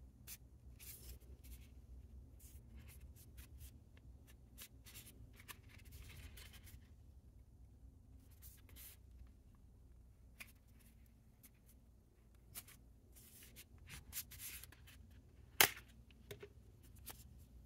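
Soft paper rustling and scraping with scattered light ticks as a paper band is slid along a closed wooden folding fan, with one sharper click about two seconds before the end.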